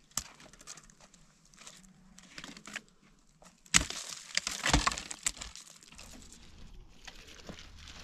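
Dry dead branches cracking and snapping as they are gathered and dragged over stony ground, with the loudest snaps about four to five seconds in.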